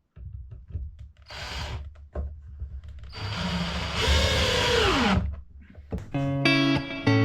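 A handheld power tool runs in two short bursts, the second and longer one falling in pitch as the motor winds down. Guitar music starts near the end.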